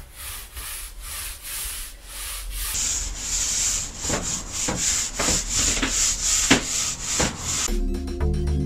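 Mini paint roller rolled back and forth over a board, spreading a dark grey paint-and-varnish mix: a rubbing swish with each stroke, louder and with a steady high hiss from about three seconds in. Background music comes in near the end.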